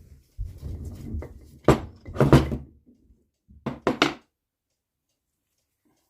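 Handling noise and then sharp knocks on the NSU Quickly engine's crankcase as the stuck crankshaft is worked out of the case half: a couple of heavy knocks about two seconds in, the loudest of them, then three quick knocks near four seconds.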